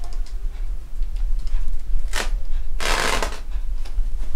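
Stone pot heating on a wood-burning stove: scattered crackles over a steady low rumble, with a short hiss about three seconds in.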